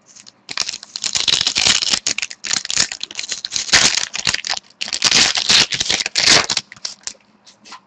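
Foil wrapper of a 2013-14 SPx hockey card pack crinkling as it is torn open and handled: a dense crackly rustle in three bouts over about six seconds.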